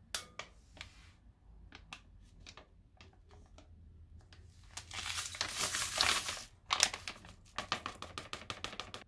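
A plastic pudding-powder packet crinkling as it is handled, then a louder, longer rasping stretch about five seconds in, followed by a quick run of crackles as the packet is upended and the powder shaken out into a glass bowl.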